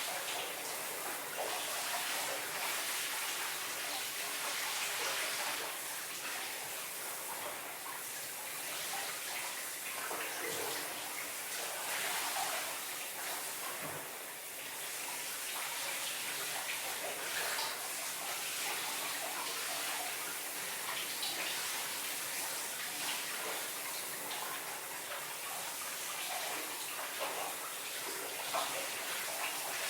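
Shower running: water spraying and splashing on a body and the floor of a small bathroom, a steady hiss with irregular spatters.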